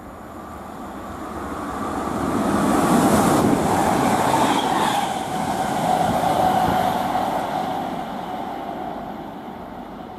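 Class 321 electric multiple unit passing, its rumble and rail noise rising to a peak about three seconds in and then fading. A whine drops in pitch as the train goes by and then holds steady.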